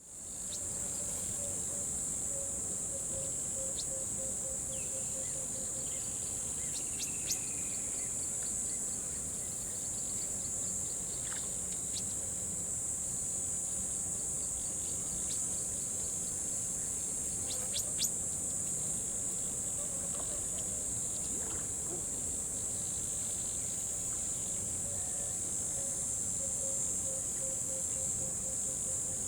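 A chorus of crickets chirping in a steady, high-pitched, unbroken drone. A lower pulsed trill joins about a second in and again near the end, with a couple of sharp clicks in between.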